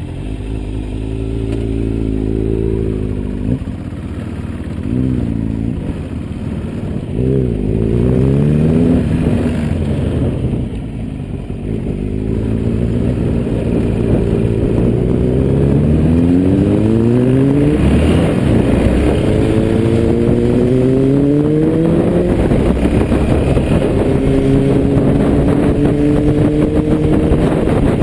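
Yamaha XT660X single-cylinder engine pulling away from a stop and accelerating up through the gears. The pitch climbs and drops back at each of about five gear changes, then holds steadier at speed, with wind rushing past.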